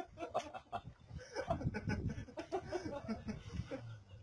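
Indistinct voices with some laughter.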